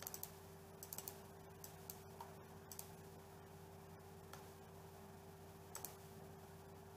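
Faint computer mouse clicks, a dozen or so at irregular intervals, over a steady low hum.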